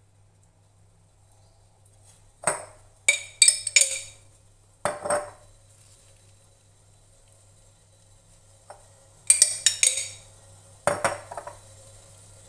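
Cutlery clinking and scraping against a dish in several short clusters of clicks with quiet gaps between, as mayonnaise is spooned onto stuffed egg halves.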